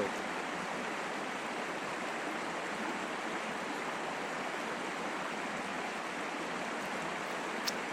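Steady rushing of running water, like a stream, with one short click near the end.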